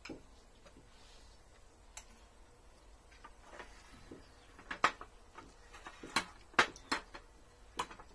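Spoons and forks clinking and tapping against ceramic plates and bowls: irregular sharp clicks, faint at first, then louder and more frequent in the second half.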